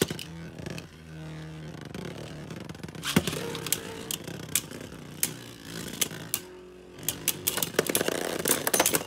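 Two Beyblade spinning tops, a custom 3D-printed one and a Revive Phoenix, whirring as they spin in a plastic stadium. They clack sharply as they collide: a sharp crack at the start, a hard hit about three seconds in, and a quick run of clashes near the end as a ring-shaped part comes off.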